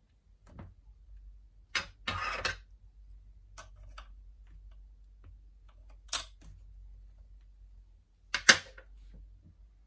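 Sharp metallic clicks and knocks of a wrench and fittings being handled at the spindle of a watchmaker's milling machine as it is set up. There is a click and a short scraping rattle about two seconds in, another click around six seconds, and a loud double knock near the end, all over a faint low hum.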